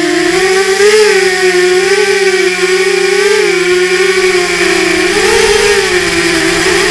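RMRC Mudskipper 250 FPV quadcopter's brushless motors and propellers whining loudly, heard close up from the onboard camera. The pitch wavers up and down with the throttle, with a bigger rise about five seconds in.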